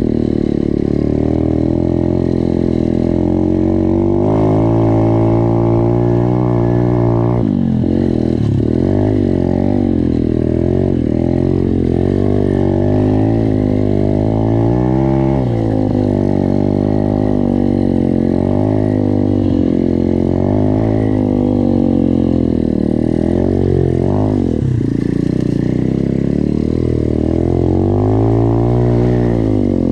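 SSR 125 pit bike's single-cylinder four-stroke engine running under load off-road, its pitch rising and falling again and again as the throttle is opened and closed and the gears change.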